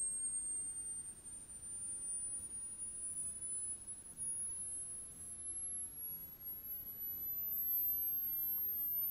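Audio frequency sweep: a single pure test tone played through a loudspeaker, very high and thin, climbing steadily higher in pitch toward the top of human hearing.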